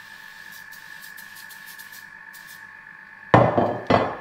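Short, faint hisses of a cooking-oil spray can greasing a ceramic baking dish, then two loud clunks near the end as the dish is set down on the benchtop. A Thermomix runs throughout with a steady whine, cooking béchamel sauce.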